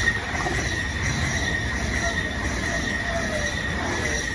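Electric SBB passenger train rolling past a station platform: steady rumble of wheels on rail with a high, steady whine running through it.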